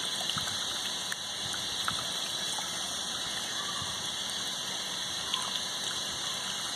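Tap water running steadily from a sink faucet and splashing over a fish fillet held in the hands and into a basin of water below, with a few faint small ticks as the fish is rubbed and rinsed.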